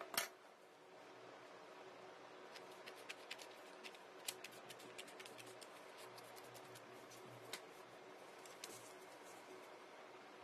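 Scissors snipping through a folded sheet of paper, heard faintly as a run of small clicks between about two and a half and five seconds in, with a few more later. One brief sharp noise right at the start is the loudest thing, and a faint steady hum lies underneath.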